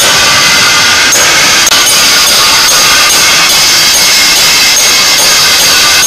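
Loud background music with a steady beat and bright percussion.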